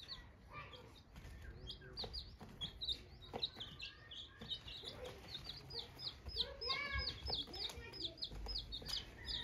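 Birds chirping: a fast run of short, high chirps, several a second, with a few lower calls about seven seconds in.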